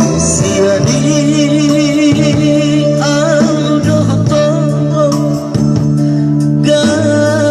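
A vocal trio singing in harmony, the held notes wavering with vibrato, over a band accompaniment with guitar.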